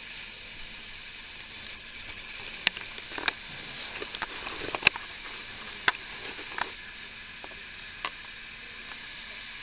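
Steady hiss with a handful of short, sharp clicks and taps between about two and a half and eight seconds in, the loudest near the middle.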